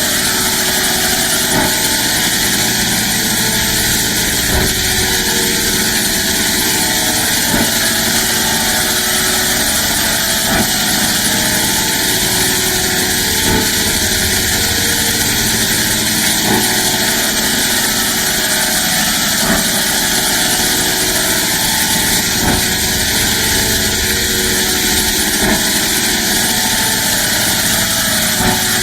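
A loud, steady engine-like drone under a dense hiss that stays unchanged throughout: an electronic sound effect.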